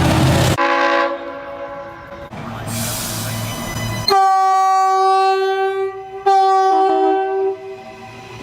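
Multi-tone locomotive air horn chords. A horn chord fades out in the first couple of seconds, followed by a stretch of train noise. About four seconds in a horn sounds again as two blasts: a long one, then a shorter one after a brief break.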